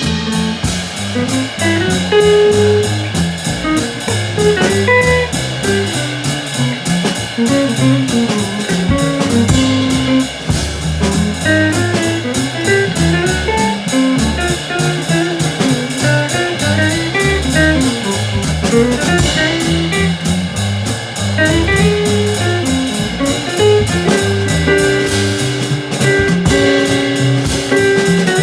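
Small band playing an instrumental jazz tune: guitar carrying the melody over bass and a drum kit keeping time on the cymbals.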